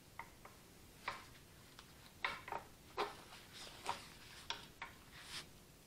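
Faint, irregular metal clicks and ticks, about a dozen, from a wrench working a tap in a broken-bolt hole in a tractor arm; the work is going very slowly.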